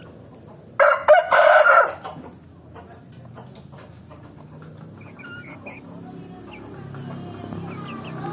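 Rooster crowing once, loudly for about a second near the start, followed by quieter chicken clucks and calls.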